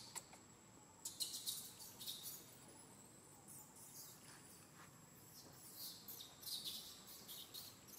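Faint forest ambience with flurries of quick, high-pitched chirping, one about a second in and another around six seconds in, over a thin steady high whine.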